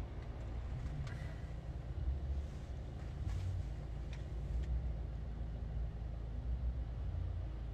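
Steady low rumble of a car in motion heard from inside the cabin, with a few faint clicks.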